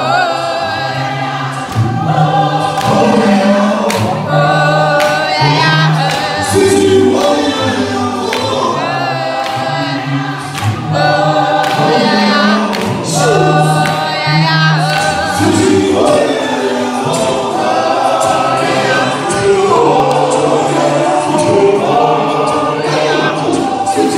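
A male choir singing in harmony, with a deep bass part held under the higher voices and short sharp hits now and then.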